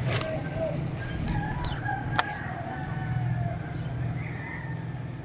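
Roosters crowing, several drawn-out wavering calls, over a steady low hum, with a single sharp click about two seconds in.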